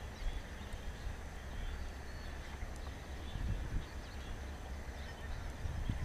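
Low, uneven rumble of a distant diesel locomotive hauling a wheat train out of a passing loop, mixed with wind on the microphone. Birds chirp faintly now and then.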